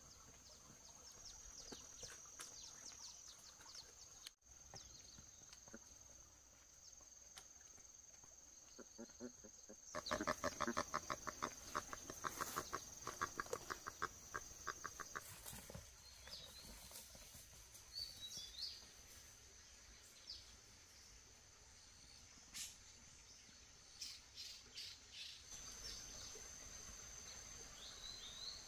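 Quiet outdoor ambience: a steady high-pitched drone under a few short bird chirps, with a run of rapid, even tapping for about five seconds partway through.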